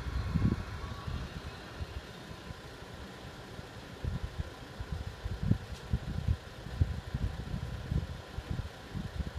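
Diesel engines of parked coaches left idling, a steady hum under uneven low rumbles that come and go.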